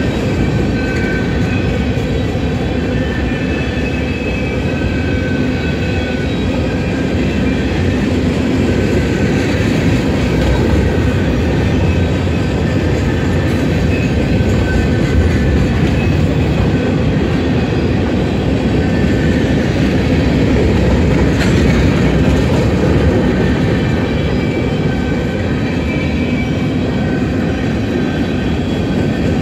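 Covered hopper cars of a freight train rolling steadily past: a continuous rumble of steel wheels on rail. Thin high wheel squeals come and go, and there is one sharp clank about 21 seconds in.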